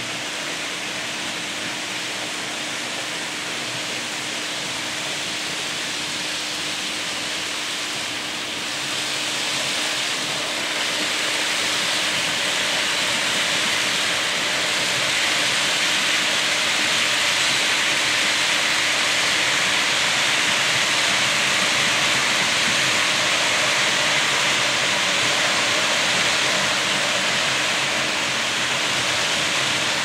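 Märklin model trains running on the layout: a steady rushing rumble of wheels on the track that grows louder about ten seconds in as a train comes by, with a steady hum underneath.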